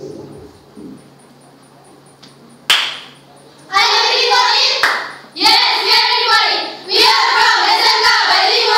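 A sharp knock on the microphone about three seconds in, after faint handling noise. From about four seconds in, a group of girls' voices sounds loudly in unison, in three phrases with short breaks between them.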